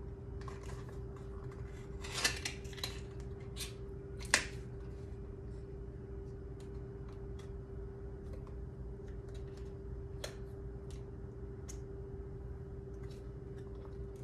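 Small cardboard product box being handled and opened by hand: scattered soft rustles and light clicks, busiest about two seconds in, with one sharp tap a little after four seconds. A steady faint hum runs underneath.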